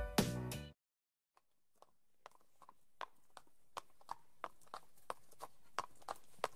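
A music cue ends within the first second. After a short silence, horse hooves clip-clop at a walk, fading in with an even rhythm of about three hoofbeats a second.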